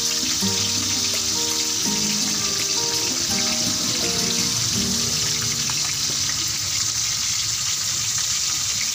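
Fish pieces frying in hot oil in a wok, giving a steady sizzle. Background music plays under it and fades out about two-thirds of the way in.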